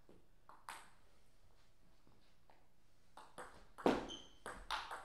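Table tennis rally: the ball clicking off the rubber paddles and bouncing on the table, a quick run of sharp ticks starting about three seconds in, the loudest near four seconds. One faint tick comes earlier, about a second in.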